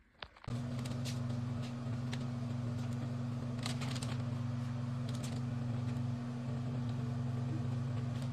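Steady low electric hum, like a running motor, switching in abruptly about half a second in, with a few faint clicks over it.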